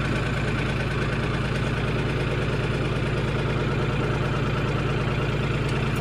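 Tractor engine running steadily while its hydraulics lower the sickle mower's folded cutter bar.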